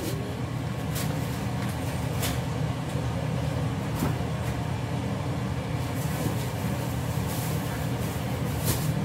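A steady low machine hum, with a few short knocks and clicks over it.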